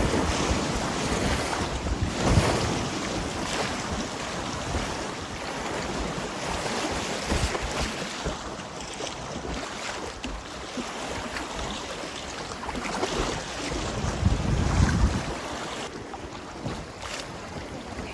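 Swollen river water rushing steadily around a packraft, with wind buffeting the microphone in low gusts, the strongest about two seconds in and again near the end.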